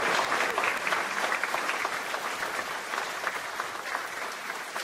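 Audience applauding: many people clapping their hands at once, loudest at the start and slowly tapering off.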